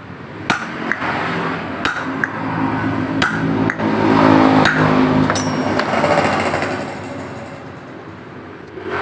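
Sharp metal knocks of a hammer tapping on the shaft of a scooter's CVT driven pulley as it is seated during reassembly, a handful of separate strikes. A vehicle engine rises and fades in the background through the middle, the loudest sound.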